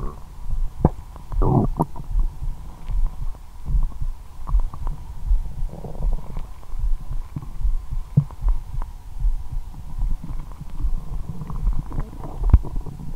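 Belly sounds picked up by a lavalier microphone resting on the abdomen: a regular low throbbing pulse, with a few small pops and short gurgles from the digesting stomach and intestines, the clearest gurgle about a second and a half in.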